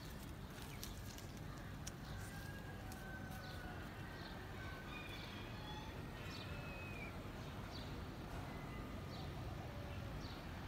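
Faint scattered bird chirps and short whistled notes over a steady low outdoor rumble.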